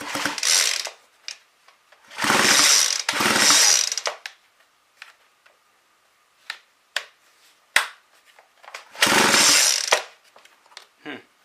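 Recoil pull-starter of a McCulloch Eager Beaver 2014 two-stroke chainsaw being yanked four times: once at the start, twice in quick succession about two seconds in, and once near the end, with small clicks between. The engine spins without firing because its spark plug is out for a spark test.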